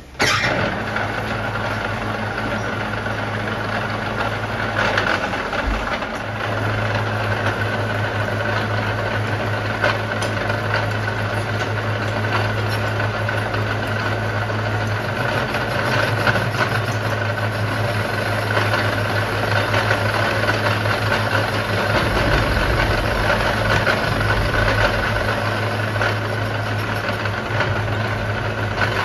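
Metal lathe switched on and running steadily, spinning a car crankshaft pulley in its three-jaw chuck, with a steady motor hum.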